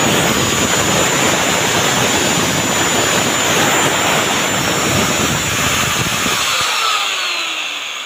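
Motor of a 6-inch electric marble cutter running at full speed in a test run after a new bearing was fitted, with a thin high whine over the running noise. About seven seconds in it is switched off and winds down with a falling whine.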